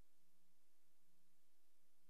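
Near silence: only a faint steady hiss and low hum on a soundless newsreel track.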